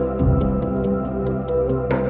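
Ambient background music: held layered synth tones, with a deep bass note coming in just after the start and light ticks about four a second. A struck accent comes near the end.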